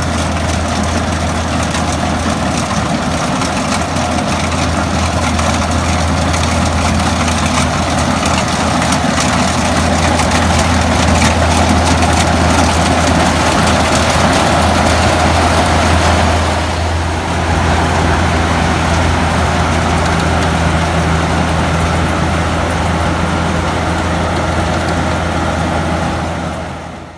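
Engine of an old Kubota combine harvester running steadily with a deep hum. The sound dips briefly about two-thirds of the way through, then runs on until it cuts off suddenly at the end.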